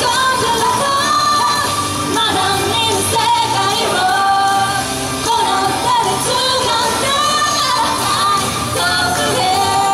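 Female pop vocal group singing live into handheld microphones over pop backing music, heard through a PA system.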